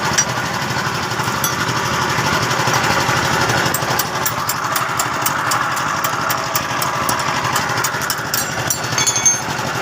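An engine running steadily, with rapid sharp ticks over it.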